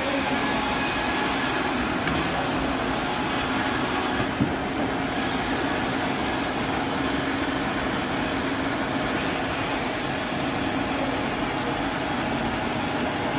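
Old sawmill machinery, in use since 1931, running steadily with a constant mechanical noise and a faint steady hum. A single sharp knock about four seconds in.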